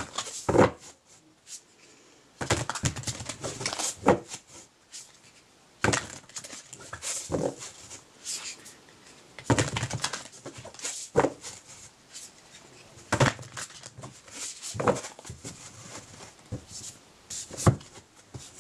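A deck of oracle cards being shuffled by hand: bursts of rustling and flicking card noise, about five rounds with short pauses between.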